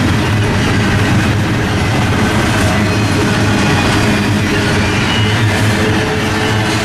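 Double-stack intermodal container train passing at close range: steady, loud noise of steel wheels on the rails as the loaded well cars roll by.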